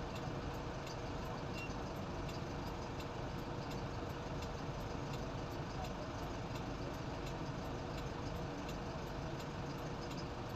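Steady low drone of engines running aboard a small river car ferry, with an even hum and no change in pace.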